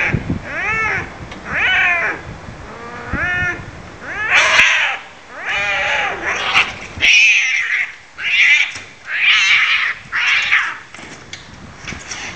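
Cats fighting: a string of loud drawn-out yowls, each rising and then falling in pitch, turning harsher and more screeching in the second half.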